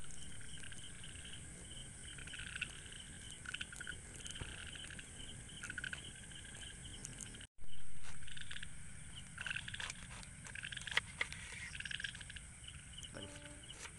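A chorus of frogs calling over and over, mixed with the scattered snaps and crackles of a burning wood campfire. The sound breaks off for a moment about halfway through.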